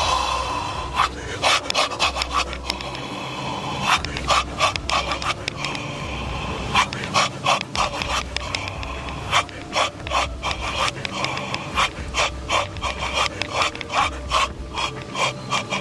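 A man's loud, forceful huffs and guttural shouts, coming in short sharp bursts a few times a second with no clear words: the vocal blasts of a faith healer performing a dua prayer-healing over a patient.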